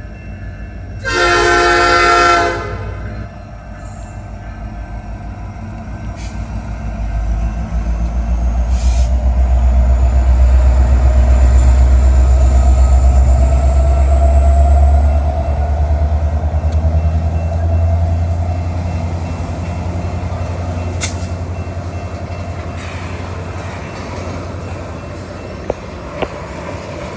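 One short blast of a diesel locomotive's P5 air horn about a second in, then the locomotive's engine rumbling loudly as it passes close by, easing into the steady rolling of tank cars on the track.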